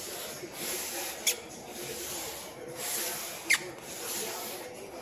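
A hand rubbing and smoothing an adhesive plastic overlay sheet down onto a wooden pinball playfield: a rubbing hiss that rises and falls with each stroke. There are two sharp crackles from the plastic sheet, one just over a second in and one about three and a half seconds in.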